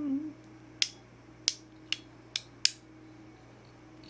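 Five sharp, short clicks from a hand tool working an RJ45 plug onto the end of a network cable.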